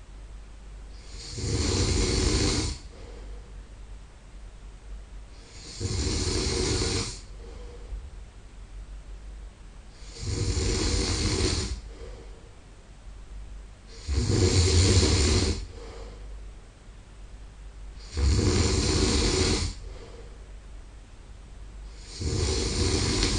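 A man snoring in his sleep: six long, loud snores, about one every four seconds, with quieter breathing between them.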